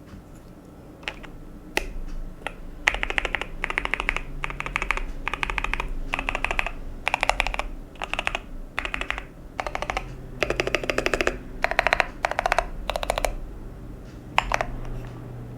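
Typing on a Pressplay Apollo61 Lightyear mechanical keyboard (aluminium tray-mount case, steel plate) fitted with lubed WS Morandi linear switches. A few single keystrokes come first, then bursts of rapid typing separated by short pauses.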